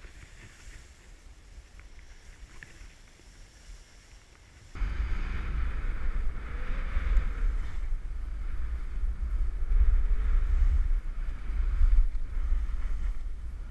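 Skiing downhill in snow: wind buffeting the camera's microphone with a low rumble and the skis hissing over the snow. It is fairly quiet at first, and the rush starts abruptly about five seconds in.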